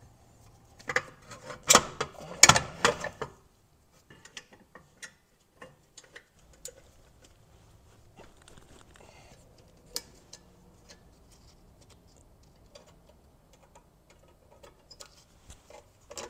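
Metal clanks and clicks of a brake caliper and hand tools being handled at a car's rear wheel: a loud cluster of sharp knocks in the first few seconds, then scattered light clicks.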